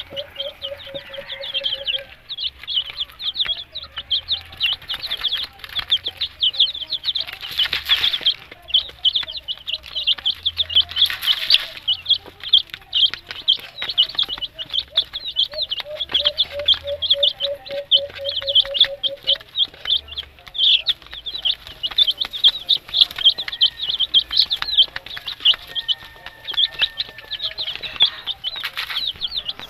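A brood of young Rhode Island Red and native chicken chicks peeping constantly, many quick high chirps overlapping. A lower rapid trill sounds twice behind them.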